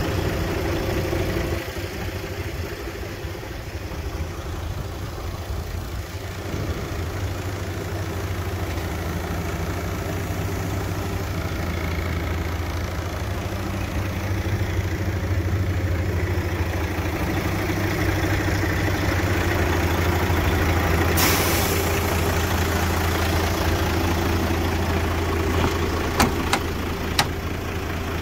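Mercedes-Benz Actros 2643 tractor unit's diesel engine idling steadily. A short hiss comes about three quarters of the way through, and a few sharp clicks come near the end.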